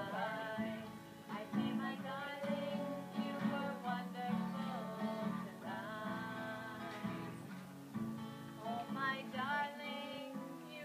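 A woman singing to an acoustic guitar, the guitar playing steady chords under her voice.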